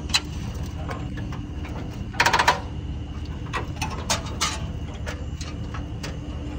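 Scattered clanks and rattles of bent metal and broken plastic being handled, as the smashed front end of a Honda Integra is pulled apart by hand, with a short cluster of knocks about two seconds in. Under it a steady low rumble, like a vehicle idling close by.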